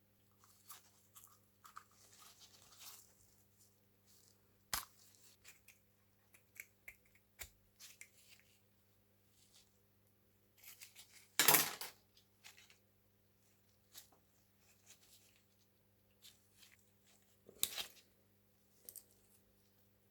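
Intermittent workbench handling sounds: small clicks, scrapes and rasps, with a loud scraping burst about eleven seconds in and another shorter one near the end, over a steady low electrical hum.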